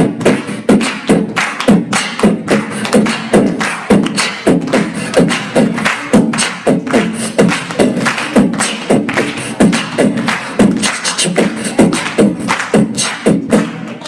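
A man making rhythmic vocal percussion with his mouth, beatbox-style, into a microphone, at a steady pulse of about three beats a second that stops sharply at the end.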